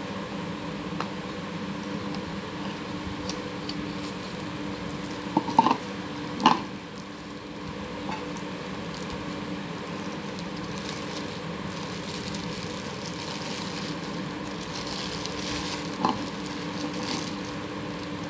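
Unpacking a pump mechanical seal by hand: the hard plastic container and lid knock and click a few times, twice close together around six seconds in and once more near the end, and the plastic film wrap crinkles as it is peeled off the stainless steel seal parts. A steady hum runs underneath.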